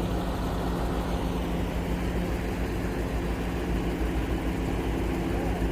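Crane truck's diesel engine running at a steady speed, an even low drone that does not change.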